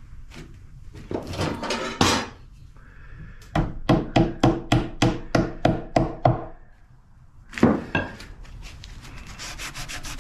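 A hammer knocking glued wooden dowel plugs into a pine board: about ten quick, even taps at roughly three a second, and one more a second later. Near the end come fast rubbing strokes on the wood.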